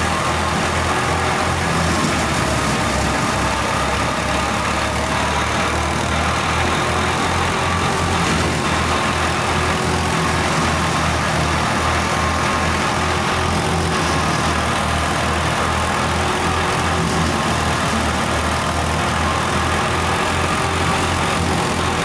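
Wheat thresher driven by a tractor's drive shaft, running steadily while wheat is fed in: a constant mechanical drone of the threshing drum and tractor engine with a fast low pulse throughout.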